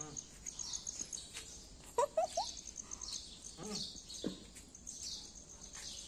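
Outdoor ambience with an insect chirping in a steady, fast pulsing trill and faint bird chirps. A few short rising calls come over it, the loudest about two seconds in and two more a little before the four-second mark.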